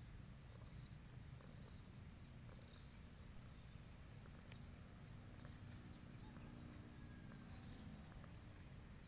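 Near silence: faint outdoor background with a low rumble and a steady high insect drone.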